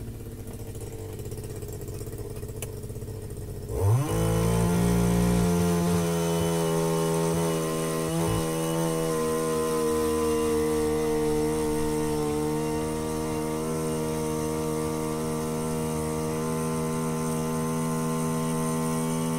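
Gas-powered ice auger engine idling, then revving up about four seconds in and holding a steady high speed as the auger bores into the lake ice.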